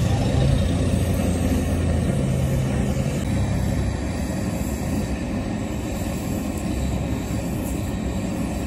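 Electric welding arc from a rod in an electrode holder, melting and fusing the lead intercell connectors of a lead-acid battery: a steady crackling hiss over a low hum, a little quieter from about four seconds in.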